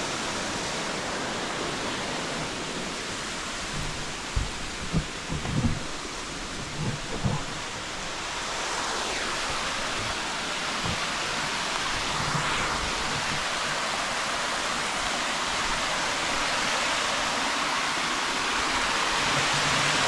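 Waterfall rushing: a steady, even hiss of falling water, with a few low thumps about four to eight seconds in.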